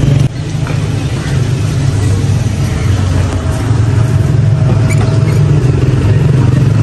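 Car engine running at idle, a steady low rumble.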